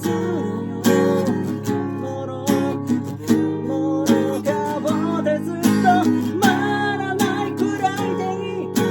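Acoustic guitar strummed, with a voice singing over it.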